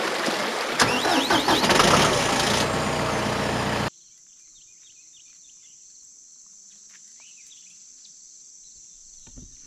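A loud rushing noise with a few squealing glides cuts off suddenly about four seconds in. After it, insects keep up a steady high-pitched drone, with scattered bird chirps over it.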